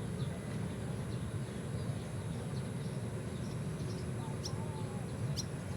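Small birds chirping in short, sharp notes, more often and a few close together near the end, over a steady low rumble.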